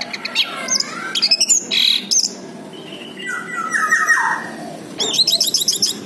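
Orange-headed thrush singing a varied song of quick whistled notes and slurs. About halfway through comes a longer phrase that falls in pitch, and near the end a fast run of repeated high notes.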